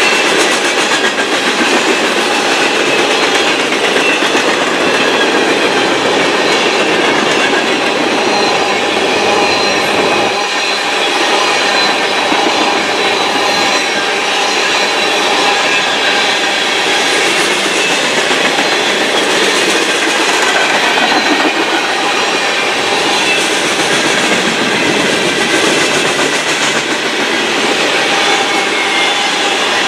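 Freight train cars rolling past: a steady rumble and clatter of steel wheels on the rails, with thin high wheel squeals above it.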